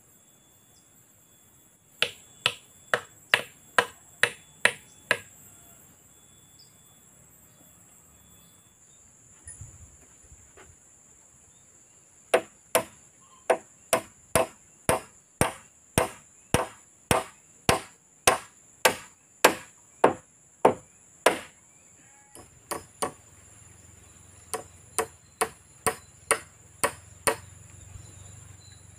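Hammer striking nails into round wooden poles, steady blows about two to three a second, in three runs: a short one about two seconds in, a long one from about twelve seconds, and another from about twenty-two seconds. A steady high insect drone runs underneath.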